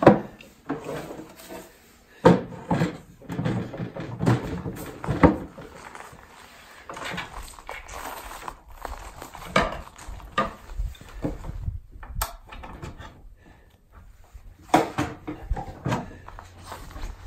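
Irregular wooden knocks and clunks as a plywood chuck box is put back together: wooden keys handled and fitted into the box, and the box shifted on its wooden stand.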